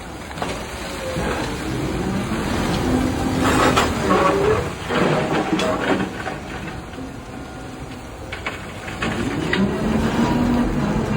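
Large electric mining excavator at work loading ore into rail wagons: a steady mechanical rumble with electric-drive whines that rise and fall in pitch, and heavier rumbling bursts about three to five seconds in and again near the end.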